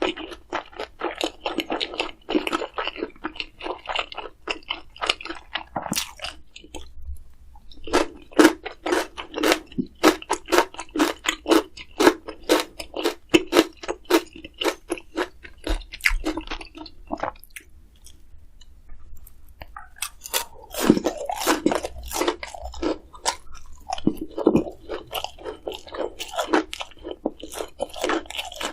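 A person chewing crunchy food close to the microphone, in runs of rapid crisp crunches with two short pauses.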